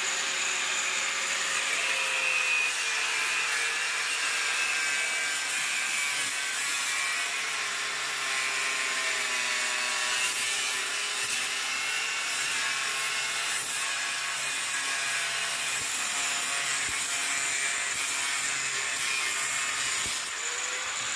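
Handheld electric angle grinder running with a cutting disc, grinding away the plastic honeycomb posts inside a car's front radiator grille. The motor whine and the grating of the disc on the plastic go on without a break, the pitch drifting slightly as the disc bites.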